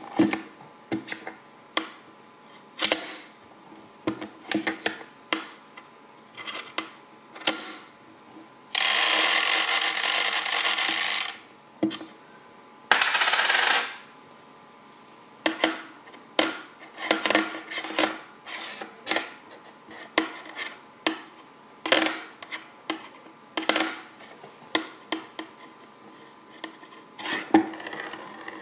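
A coin spun on a magnetic stirrer's plate, clicking and rattling against it in irregular bursts. Around the middle come two longer stretches of continuous rapid chattering, the first lasting a couple of seconds and the second about one.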